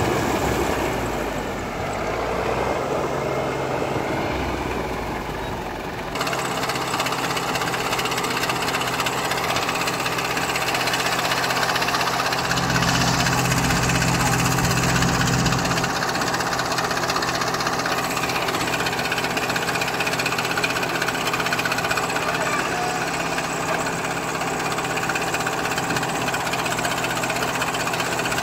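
A JCB backhoe loader's diesel engine runs steadily while the backhoe arm digs and loads gravel. For about three seconds near the middle the engine's low hum grows louder as it works harder under hydraulic load.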